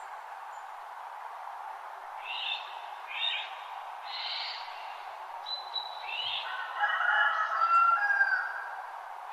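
Several wild birds calling at dawn over a steady hiss of a creek running over rocks: a few short, high chirps early on, then a louder burst of lower calls a couple of seconds before the end.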